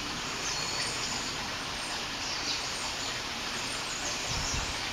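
Steady outdoor background hiss with birds chirping briefly now and then, and a short low rumble about four seconds in.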